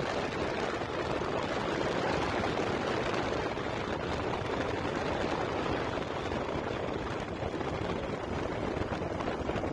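Steady rush of wind and road noise at road speed, with a custom 1100cc single-cylinder turbo diesel motorcycle riding alongside.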